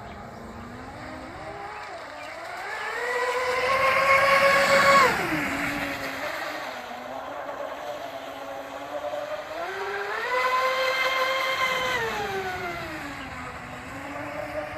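Electric motor of an RC speedboat running on a 5S battery, its whine rising as the throttle opens, holding high for a second or two, then dropping away. This happens twice, loudest about five seconds in, and the whine climbs again near the end.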